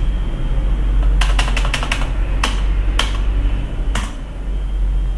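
Computer keyboard keys being pressed (Enter and the space bar): a quick run of several keystrokes about a second in, then single presses near two and a half, three and four seconds, over a steady low electrical hum.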